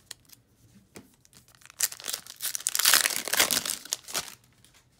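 Foil wrapper of a Donruss Optic basketball card pack being torn open and crinkled: a dense crackling rustle lasting about two and a half seconds, starting near the middle and stopping suddenly. Before it come a few light clicks of cards being handled.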